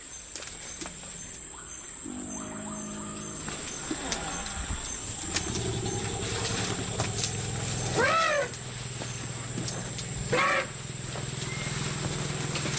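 Bornean elephants rumbling: a low rumble about two seconds in, then long low rumbles from about five seconds on, with two short higher calls that rise and fall, about eight and ten seconds in. A steady high insect buzz runs underneath.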